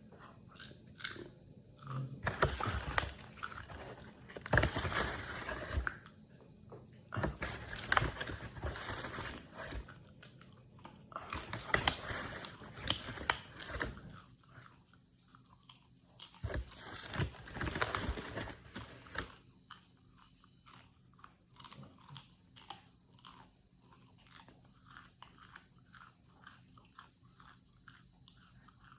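Popcorn being chewed close to the microphone: repeated bursts of crunching, quieter and sparser in the last third.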